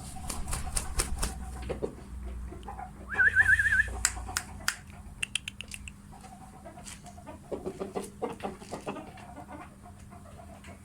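A fighting bird giving a short, loud warbling trill about three seconds in, among scattered sharp clicks and scuffling, with softer clucks and calls later.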